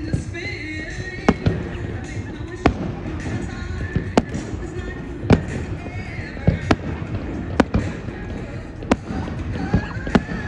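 Aerial fireworks going off: a run of sharp, irregular bangs, about one or two a second, over a steady rumble, with music and voices underneath.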